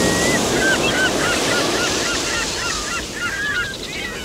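Many short bird calls overlapping in quick succession, over a steady rush of surf and wind that eases off near the end.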